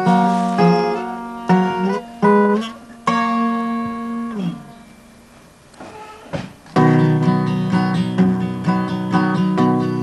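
Acoustic guitar: a few strummed chords ring out and die away about four and a half seconds in. After a short lull, steady rhythmic strumming starts about seven seconds in. These are the closing chords of one song, then the lead-in to the next.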